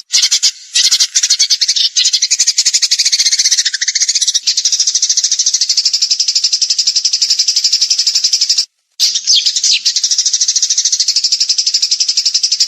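A songbird singing a long, loud, rapid-fire trill of very fast repeated high notes, the 'tembakan' song used in birdsong tutor recordings. It breaks off for a few short moments, the longest about nine seconds in, then resumes.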